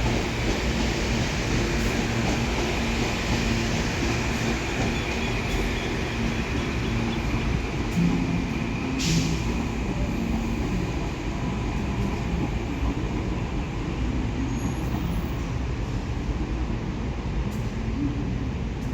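Electric commuter train running through a station: a steady rumbling noise with a faint high squeal in the first half and a brief hiss about nine seconds in.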